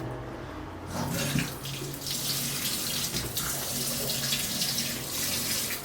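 Tap water running into a sink, starting about a second in and soon growing to a full, steady splashing hiss, as raw chicken breast pieces are washed under it.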